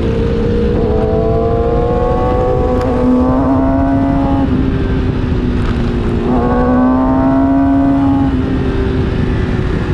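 Kawasaki Ninja motorcycle engine heard from on board at speed under a steady rush of wind, its pitch climbing twice as it accelerates: once from about a second in and again just past six seconds, each climb breaking off as the throttle comes off or a gear changes.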